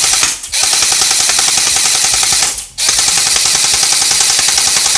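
JG M4 carbine gel blaster firing on full auto in long rapid bursts, with two brief breaks, about half a second in and again near the middle.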